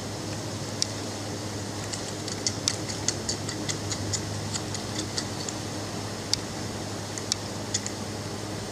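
Belgian Malinois puppies making sharp, irregular clicks as they go after their mother, a quick run of them a couple of seconds in and a few scattered later, over a steady low hum.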